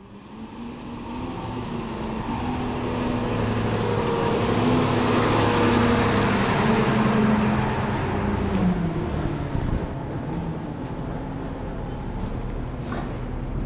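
A motor vehicle passing close by on the road. Its engine and road noise build up over the first few seconds, are loudest around the middle, and the engine note drops in pitch as it goes past. The sound then settles to a steady traffic hum.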